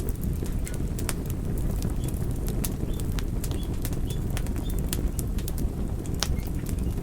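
Campfire burning: wood crackling with irregular sharp pops over a steady low rumble of the flames, with a few faint short high chirps in the middle.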